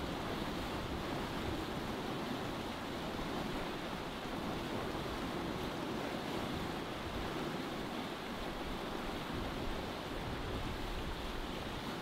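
Steady rush of sea water and wind from a sailboat under way, an even wash with no distinct splashes or knocks.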